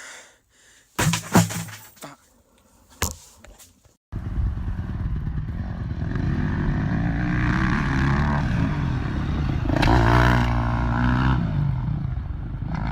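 A few clattering knocks, then a dirt bike engine starts sounding abruptly about four seconds in and runs steadily, rising briefly in pitch and level about ten seconds in as it is revved.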